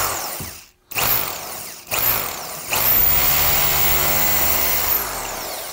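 Dexter 1100-watt hammer drill boring into a wall. It runs in a few short bursts to start the hole, then runs steadily for about three seconds and stops near the end.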